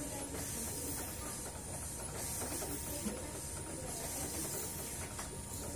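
Steady hiss and mechanical hum of hospital bedside equipment, with a faint steady tone and high hiss that swells and fades every second or two.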